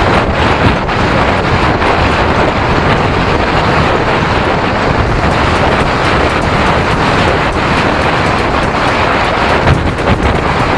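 Loud, steady wind buffeting on the microphone of a camera riding along on a moving bicycle.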